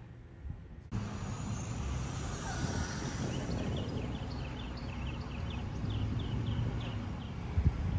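Outdoor ambience: after a quieter first second, a steady low rumble sets in, and around the middle comes a run of about a dozen quick chirps, each falling in pitch, about three a second.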